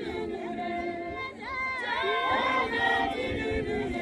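A congregation of voices singing a hymn together a cappella, with no instruments.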